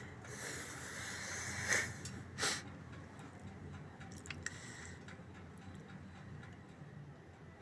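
Handling noises from reassembling a sewing machine foot pedal: a rustling hiss, two short knocks about two seconds in, then a few light clicks.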